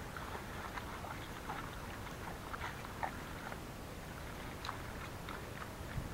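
Chopped chicken frying in a wok over a wood fire, stirred with a wooden spatula: a steady sizzle with scattered light crackles and clicks.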